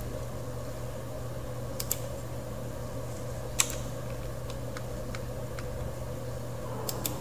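A few sharp, short computer mouse clicks as line points are placed, the loudest about three and a half seconds in and two close together near the end. They sit over a steady low hum and hiss.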